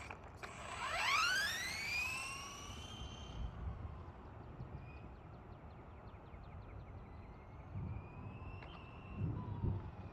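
Brushless electric motor of a 1/14-scale RC car whining up in pitch as the car accelerates hard about a second in, levelling off after about two seconds. Fainter, shorter whines follow as it drives on at lower speed, with a couple of low thumps near the end.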